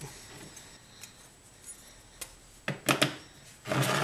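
Thin sheet-steel stand pieces, cut from a computer case, clicking and clinking against each other as they are slotted together by hand. A few sharp metallic clicks come in the second half, with a short clatter near the end.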